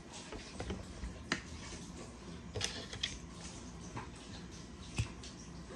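Small, sharp clicks and taps from handling a rubber watch band, its metal loop and cardboard packaging, about five spread over a few seconds, over a steady low hum.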